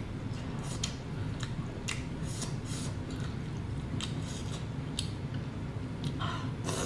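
Cooked lobster torn apart by hand: scattered short cracks and crisp snaps of shell and meat pulling apart, over a steady low hum.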